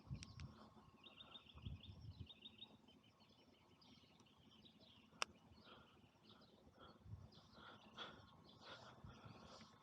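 Faint birds chirping and singing over quiet outdoor air, with one sharp click about five seconds in.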